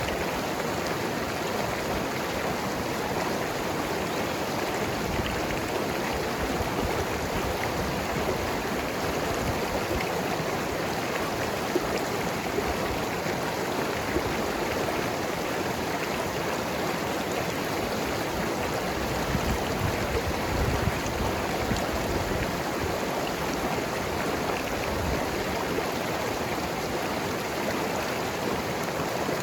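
Mountain river flowing and gurgling over rocks: a steady rush of water with small splashes and surges.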